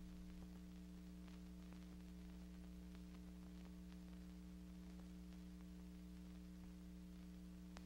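Near silence: a steady low hum with faint scattered clicks, the background noise of an archival film transfer, with one sharper click near the end.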